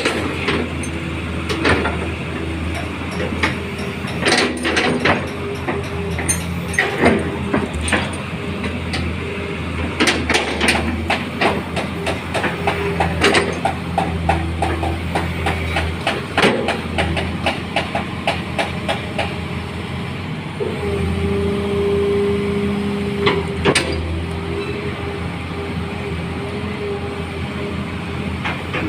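Hitachi Zaxis 210F-5G excavator working: its diesel engine runs steadily under a hydraulic whine that swells for a few seconds about two-thirds of the way in, with repeated metallic clanks and knocks from the machine, including a quick clattering run near the middle.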